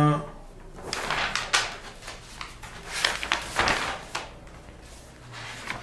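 Paper pages of a file being leafed through and turned, a string of rustles and flicks lasting about three seconds.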